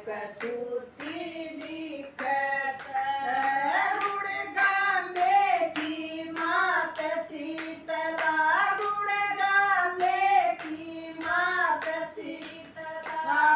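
Women singing a Haryanvi devotional bhajan together without instruments, keeping time with steady rhythmic hand claps.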